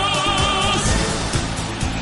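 Pop song: a sung note held with vibrato ends a little under a second in, then the instrumental goes on with a steady drumbeat.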